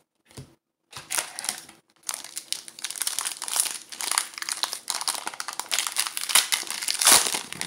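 Foil wrapper of a Panini FIFA Score trading-card pack crinkling as hands work it open, a dense run of crackles from about a second in, loudest near the end.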